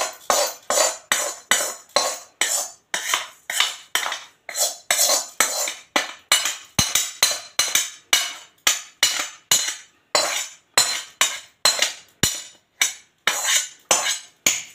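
Steel knife scraping the inside of a steel kadhai in quick repeated strokes, about two to three a second, working loose the stuck melted jaggery and sesame.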